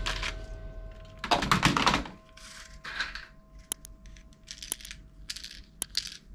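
Plastic clicking and clacking of toy guns being handled: a quick run of clacks about a second and a half in, then scattered single clicks and short rustles.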